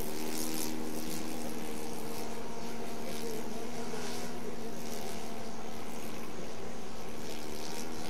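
Radio-controlled model airplane's glow-fuel engine droning steadily at a distance while the plane flies high overhead, its pitch holding nearly constant with slight wavering.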